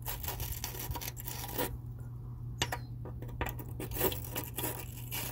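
A small gun-cleaning bore brush twisted in a threaded bolt hole in a truck's pinch weld, its bristles scratching and clicking irregularly against the threads as it clears out grit and buildup. A steady low hum runs underneath.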